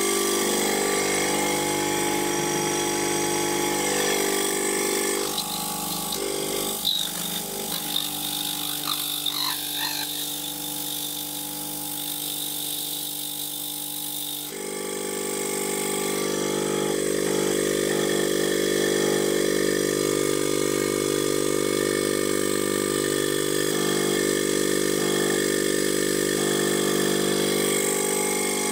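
DWM Copeland semi-hermetic refrigeration compressor running on the bench, its three-phase motor fed from single-phase 240 V through run capacitors and a kickstart kit, with a steady hum. From about five seconds in the sound thins and drops a little, with a few small clicks, then comes back full abruptly about halfway through.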